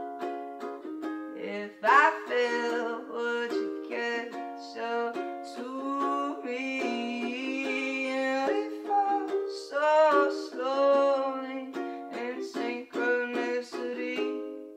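Ukulele strummed in chords while a man sings the melody over it.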